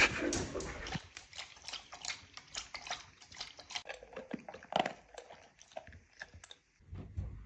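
Samoyed dog lapping water from its bowl: a quick run of wet clicks, with a louder knock of the bowl at the start and another about five seconds in.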